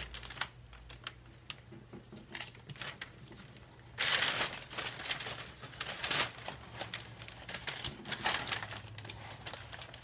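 Parchment paper crinkling and rustling in irregular bursts as it is peeled back and handled, loudest about four seconds in.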